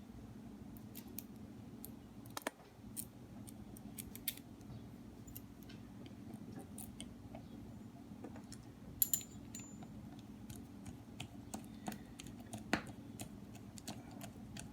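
Scattered light clicks and taps of small metal tools and reel parts being handled while the handle knob of a Van Staal VS200 spinning reel is worked on, over a faint steady hum. A sharper click comes about nine seconds in.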